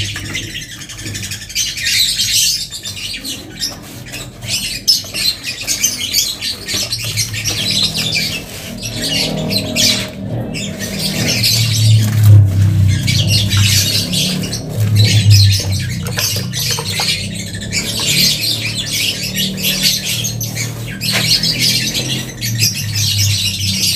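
A brush scrubbing cement-mixed waterproofing slurry onto a concrete slab: repeated scratchy strokes. A low hum comes and goes underneath.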